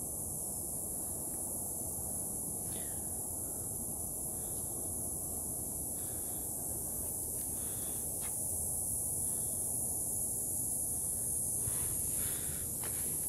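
Steady, high-pitched shrill of cicadas in the trees, with a low rumble of wind on the microphone; a few footsteps on the stone path near the end.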